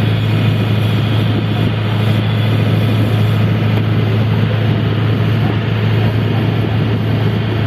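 Boat engine running steadily at a constant speed, a deep, even hum with the rush of water and wind over it.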